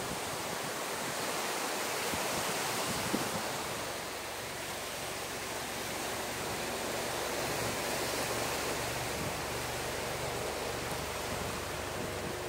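Surf washing on a sandy beach mixed with wind on the microphone, a steady rushing noise. A low steady hum joins about halfway through.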